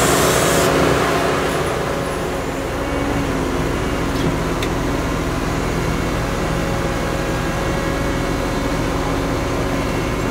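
Kaiser walking excavator's diesel engine running steadily as the machine works its hydraulic boom and wheeled legs. A louder hiss in the first second drops away, and two faint clicks sound about midway.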